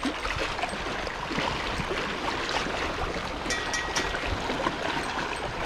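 Sea water washing and lapping against shoreline rocks, a steady rushing noise, with a brief faint high tone about three and a half seconds in.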